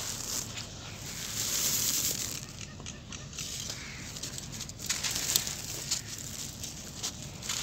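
Dry sand-cement lumps crushed and crumbled between bare hands, the grit and dust trickling down: a steady gritty hiss with sharp crackles as the lumps break.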